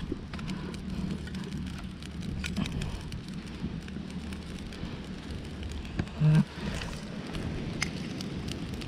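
Small wood fire of kindling and starter sticks catching in a stone stove, crackling with scattered small pops over a steady hiss. A brief low thump about six seconds in.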